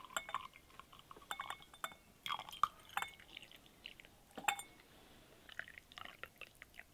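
Tea poured from a glass teapot into a tulip-shaped glass: irregular splashing and trickling with light glassy clinks.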